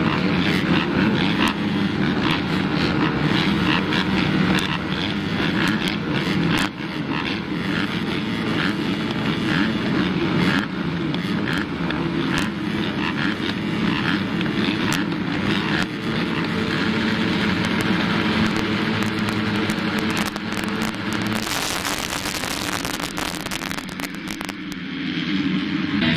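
Motocross motorcycle engines running on the track, their pitch rising and falling as the riders work the throttle. A hiss covers them for about three seconds near the end.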